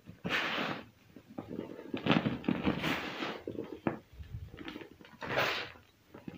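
Hands crushing and crumbling chunks of black-dyed gym chalk and cornstarch: soft crunching and powdery crumbling in uneven bursts as the powder is squeezed and let pour through the fingers, with a few sharp little crackles.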